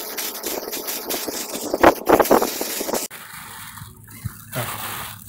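A hand in a plastic bag tossing shredded carrot and vegetables in a bowl: plastic crinkling and a wet rustling of the filling. It is loudest about two seconds in and drops off after about three seconds.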